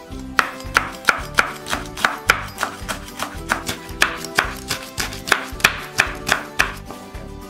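Knife chopping green chillies on a wooden cutting board: a quick run of sharp cuts, about three a second, over background music.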